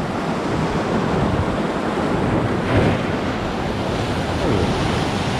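Sea waves breaking and washing in white foam over a rocky shoreline, a continuous rushing surf with a bigger surge about three seconds in.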